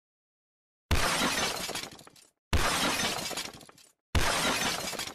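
Three shattering crashes about a second and a half apart, sound effects of a wall breaking apart. Each starts suddenly and dies away over about a second.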